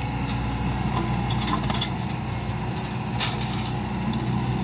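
Hitachi Zaxis 110 excavator's diesel engine running steadily under load while its rotary mulcher head grinds chipped oil palm trunk debris. Irregular sharp cracks and ticks are heard as chips and debris are struck, a cluster about a second and a half in and another about three seconds in.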